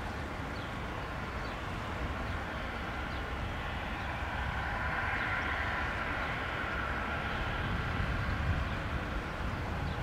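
Gulfstream G650's twin Rolls-Royce BR725 turbofan engines running as the jet taxis slowly along the runway after landing: a steady jet rush with a low rumble, swelling a little toward the middle.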